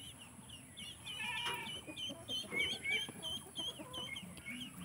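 Ducklings peeping: a quick, steady run of short, high peeps, about three or four a second, with a few lower calls from adult birds underneath.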